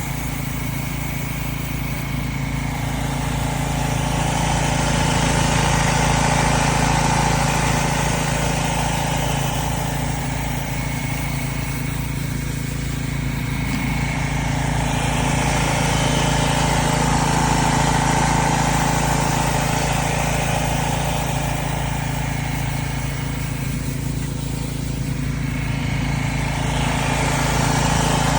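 Small gas engine of a pressure washer running steadily, with the spray noise growing louder and softer in slow swells.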